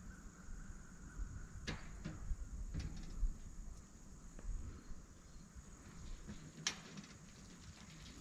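Faint outdoor background with a steady high-pitched hum and a few scattered sharp clicks and knocks, the sharpest about two-thirds of the way through.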